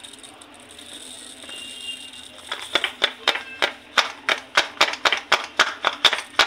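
Sabja seeds trickling through a plastic funnel into a glass bottle. From about two and a half seconds in come sharp, evenly spaced taps, about three a second.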